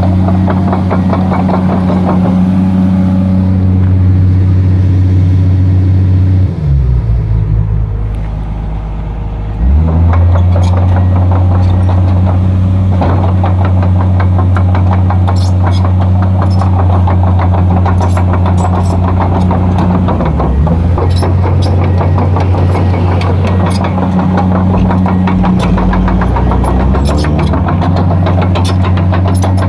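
Komatsu PC200 excavator's diesel engine running steadily. About six seconds in its speed sags for roughly three seconds, then picks back up, and it dips briefly twice more later on.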